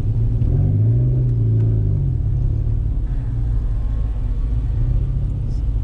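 The 1997 Dodge Viper GTS's 8.0-litre V10 idling with a deep, steady rumble through its headers and custom exhaust, heard from inside the cabin. Its pitch rises briefly about half a second in and settles back by about two seconds.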